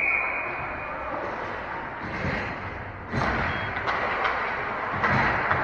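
Ice hockey rink sound. A referee's whistle gives one short steady blast at the start, then there is the broad noise of the rink and its spectators. About three seconds in the noise rises suddenly, with a few sharp knocks.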